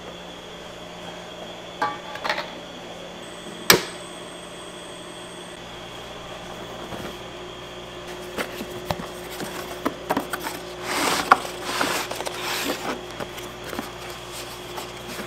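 Kitchen work noise over a steady machine hum: a few clicks, one sharp knock about four seconds in, then a stretch of uneven scraping and rustling.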